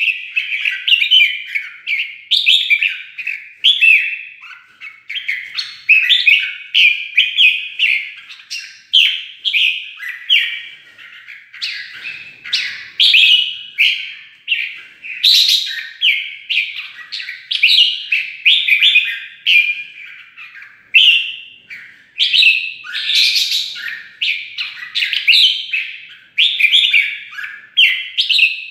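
Red-whiskered bulbul singing its loud fighting song: quick chirping, warbled phrases a second or two long, following each other with only brief gaps.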